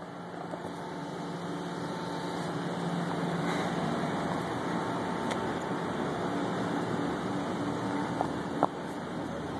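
Steady outdoor urban background noise, a low hum and rush of machinery and distant traffic, with one brief sharp blip near the end.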